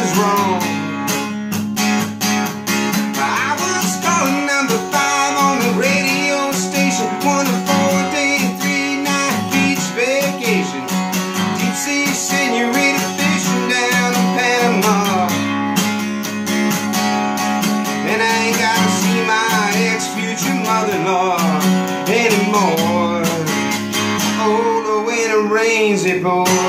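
Steel-string acoustic guitar strummed steadily in a country song, with a man's voice singing over it.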